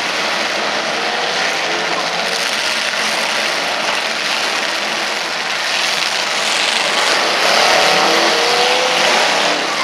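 Many demolition derby cars' engines running and revving together through open upright exhaust pipes, a loud steady din that swells a little about seven seconds in.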